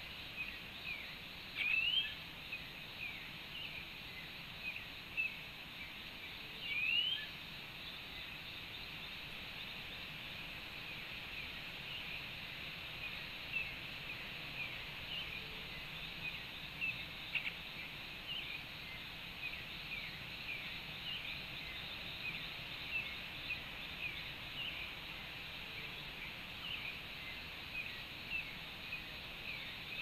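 Forest ambience at a tropical bird feeder: a steady high insect chorus, with many short bird chirps over it. Two louder rising bird calls come about two and seven seconds in.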